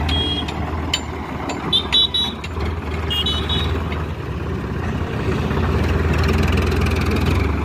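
Sonalika DI 50 tractor's diesel engine running steadily as it pulls a trailer loaded with wet river sand, the low hum growing louder over the last couple of seconds. A few short high beeps sound in the first few seconds.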